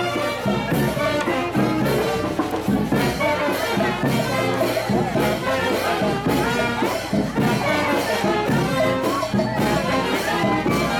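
Brass band playing upbeat festive dance music, trumpets and trombones over a steady beat.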